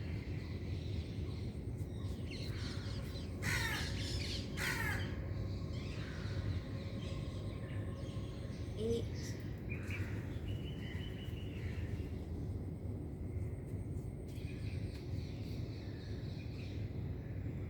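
Two loud, rasping bird calls about a second apart, a few seconds in, then fainter chirps, over a steady low hum.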